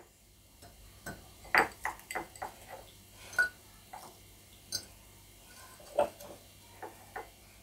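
Frozen orange pieces being picked from a small ceramic bowl and dropped into a tall glass, clinking and knocking against it like ice: a string of light, irregular taps, two louder ones about one and a half seconds in and about six seconds in, and one short glassy ring.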